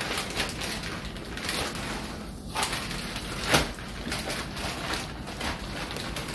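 Large plastic zip-top bag crinkling and rustling as a slab of rub-coated pork belly is slid into it, in irregular crackles with one sharper crackle about three and a half seconds in.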